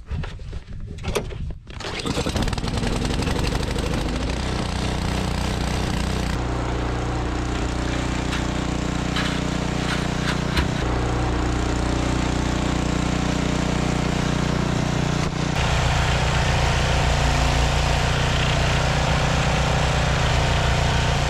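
Gas-powered two-stage snowblower engine starting about two seconds in, its pitch rising as it catches, then running steadily at high speed while clearing snow. The tone of the engine changes abruptly twice.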